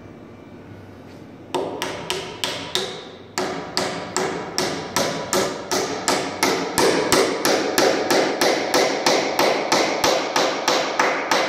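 Hammer blows driving a sugar maple Windsor chair leg's tapered round tenon into its mortise in a pine seat: a few spaced strikes, a short pause, then a steady run of ringing blows about three a second. The ring of each blow is what the chairmaker listens to, to hear when the joint is fully seated; going too far would split the seat.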